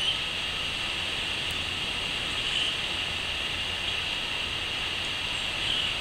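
Crickets chirping in a steady, high-pitched drone, with a few faint, brief calls standing out over it.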